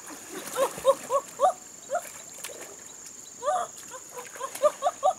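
Animal calls: two quick runs of short notes, each rising and falling in pitch, about five in a run, the second run starting about three and a half seconds in.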